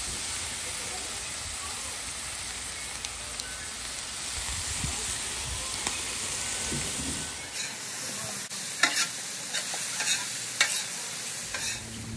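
Sliced zucchini, squash, mushrooms and broccoli sizzling in oil and butter on a Blackstone flat-top griddle, a steady hiss. In the second half, several sharp clacks sound over the sizzle.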